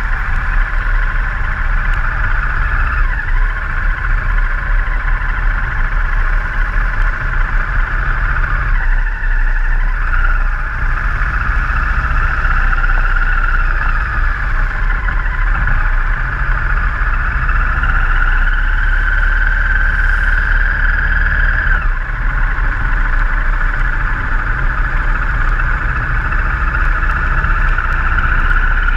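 Motorcycle engine running as it is ridden, the note rising and falling with the throttle, with steady wind and wet-road noise on the bike-mounted camera's microphone.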